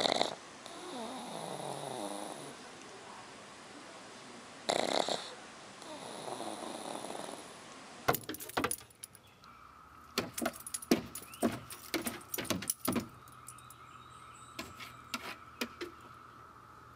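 A sleeping pug snoring in slow breaths, with a louder snort about five seconds in. Then a run of sharp clicks and taps, a dog's claws scraping the wooden deck boards as it paws at a cicada, with a steady high hum underneath.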